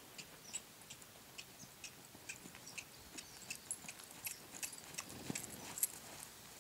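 A horse's hooves and a person's footsteps crunching on a sandy arena as the horse is led in hand, coming down from a trot to a walk: a faint, irregular string of light steps.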